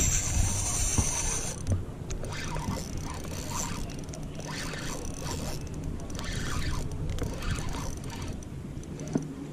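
Spinning reel being cranked to bring in line, its gears whirring and clicking in irregular spurts, over a steady low rumble of wind on the microphone. A loud hiss in the first second and a half cuts off abruptly.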